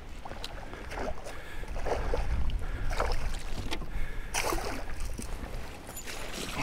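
Wind buffeting the microphone with a steady low rumble, while small waves slap and splash against the kayak's hull about once a second.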